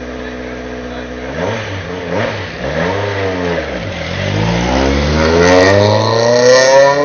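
Rally car engine running at steady revs, then dipping and rising a couple of times before a long climb in revs that is loudest near the end.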